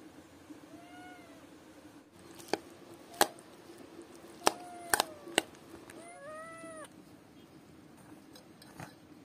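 A small black cat meowing three times, the last call the longest, while a metal spoon knocks sharply several times against a metal pot as rice is scraped out of it.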